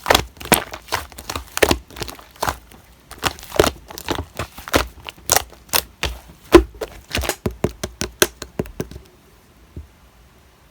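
Slime being squished and pressed by hand, giving an irregular run of sharp clicks and pops, a few a second, that stops about nine seconds in.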